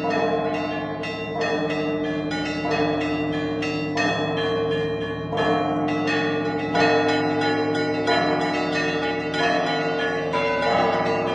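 Russian Orthodox church bells rung in an improvised peal (zvon): quick, several-a-second strikes of the higher bells over the steady ringing of the low bells.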